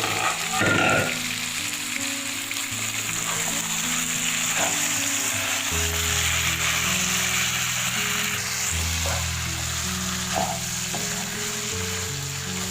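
Chicken frying in a covered pan with a steady sizzling hiss, under background music of slow held notes. A brief clatter about a second in.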